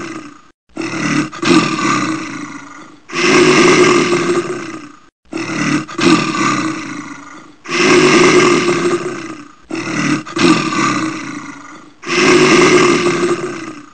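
A looped animal roar sound effect: a long roar followed by a shorter, broken one that fades, the pair repeating identically about every four and a half seconds.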